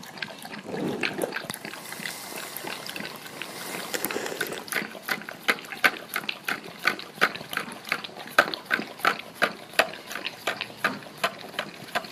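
A golden retriever licking yogurt out of a small plastic cup: wet, smacking licks, softer and less regular at first, then steady at about three a second from about four seconds in.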